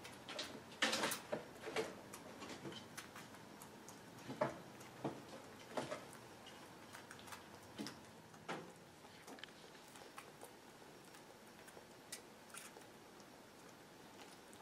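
Six-week-old western gray squirrel suckling at a feeding-syringe nipple: faint, irregular clicks and smacks, busiest in the first half and thinning out after about nine seconds.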